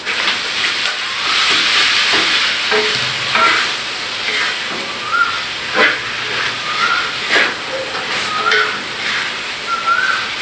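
Leafy greens hitting hot oil in a wok and sizzling, loudest in the first few seconds, then stir-fried with a spatula that clicks against the wok now and then. A short rising whistled chirp repeats about every second and a half in the background.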